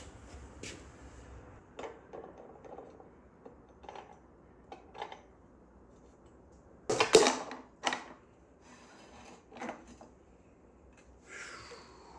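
Metal tools and parts clinking and knocking against a Yamaha F300 outboard's lower unit gear case during teardown, with a loud metallic clank about seven seconds in and another about a second later.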